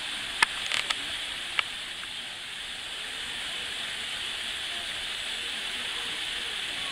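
Steady background hiss, like running water or a camera's own noise, with a handful of sharp clicks in the first two seconds.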